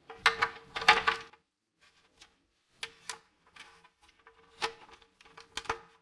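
Hard plastic parts of a Dyson Gen5detect docking station being handled as the charging cable is fed through its bracket: a string of clicks, knocks and rubbing sounds. They are loudest in a cluster during the first second and a half, then come as scattered single clicks.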